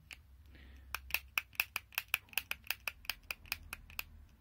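SRAM DoubleTap road shifter fitted with a Ratio Technology 12-speed ratchet, its lever worked by hand so the ratchet indexes through its shifts. A rapid, even run of sharp clicks, about five a second, starts about a second in.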